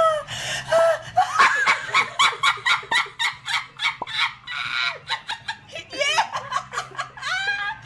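A person laughing hard in quick repeated bursts, with high-pitched voice sounds in between.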